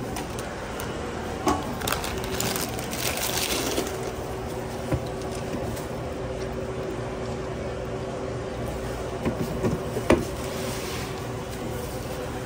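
Steady hum of sandwich-counter equipment with a few faint steady tones, under handling noises from food prep: a patch of rustling about two to four seconds in and a few light knocks, the sharpest about ten seconds in.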